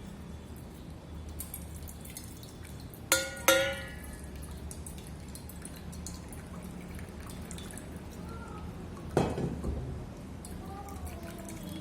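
Herbal decoction being strained: liquid dripping and pouring through a strainer into a vessel, with two ringing clinks of utensils about three seconds in and a knock near the end.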